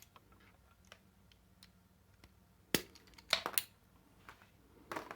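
Sharp metallic clicks and snaps from handling crimping pliers and connectors: a few faint ticks, one sharp click a little under three seconds in, a quick cluster of clicks just after, and another near the end.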